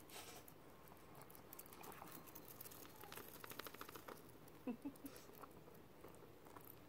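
Faint, near-silent footsteps and light patter of a small dog walking on leash on pavement, with a quick run of small ticks a little past the middle and a few short squeaks about two-thirds of the way in.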